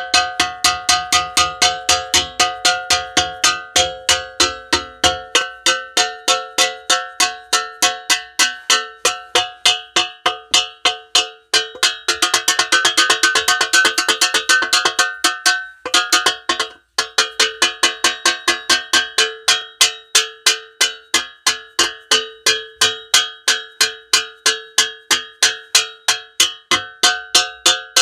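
Metal spoon banging on a saucepan, about three ringing clangs a second, with a faster run of rapid strikes midway and a brief pause just after it.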